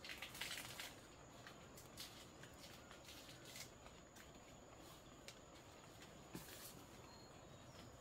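Quiet forest ambience with faint, scattered rustles and crackles of leaves and brush as someone moves through dense undergrowth, the loudest about half a second in, over a faint steady high-pitched tone.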